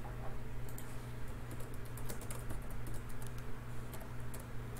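Typing on a computer keyboard: quick, irregular key clicks over a steady low hum.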